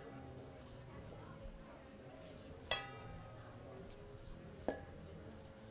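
A knife slicing kernels off an ear of corn held in a stainless steel bowl, with two sharp ringing clinks about two seconds apart as the blade knocks the bowl.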